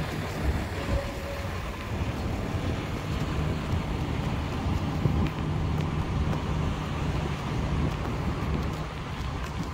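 City street traffic noise: a continuous low rumble of road vehicles, with wind buffeting the microphone. A low steady hum runs through the middle few seconds.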